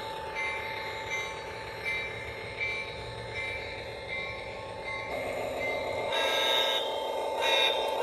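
Model railroad grade-crossing bell played through a small speaker, dinging steadily about four times every three seconds as the O-scale diesel train passes the crossing. About five seconds in, a louder, fuller sound with several steady pitches comes in and the bell is no longer heard.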